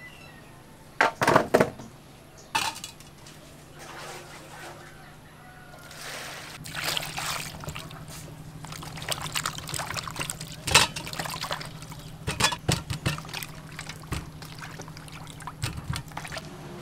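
Water splashing and sloshing in a metal bowl as peeled potatoes are washed by hand, with a few louder splashes.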